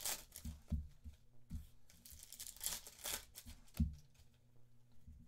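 Foil wrapper of a trading-card pack being torn open and crinkled by hand, in two spells, with a few soft knocks as cards are handled on the desk.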